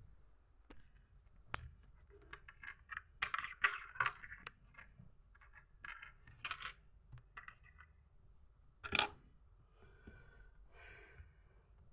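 Small hard plastic Lego pieces being handled: scattered clicks and clattering rattles, with one louder sharp clack about nine seconds in and a brief rustle near the end.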